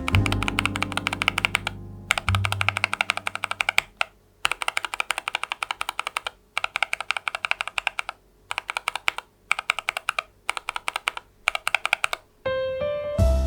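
Typing on a NuPhy Air96 V2 low-profile keyboard with Gateron LP 2.0 red linear switches: fast runs of light key clicks lasting a second or two each, with short breaks between them. Background piano music fades out over the first couple of seconds and comes back near the end.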